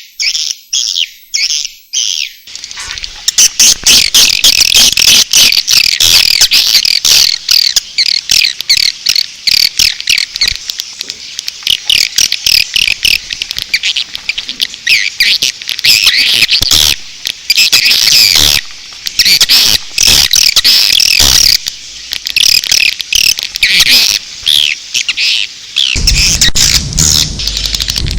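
Swiftlet calls from a swiftlet-house lure track: a dense chattering of short, high twittering chirps. It starts as a few separate calls about three a second, then runs on continuously from about two seconds in. A low hum joins near the end.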